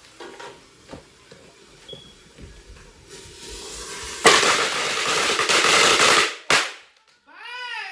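A string of firecrackers going off: a rapid, dense crackle that starts suddenly and lasts about two seconds, then one last sharp bang. A person yells near the end.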